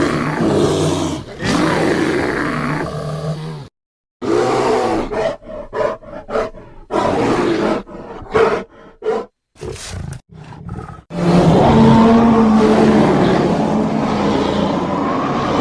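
Bear roar and growl sound effects for Arctotherium, the giant short-faced bear: a long roar, a brief silence, a string of short grunts and growls, then another long roar from about eleven seconds in.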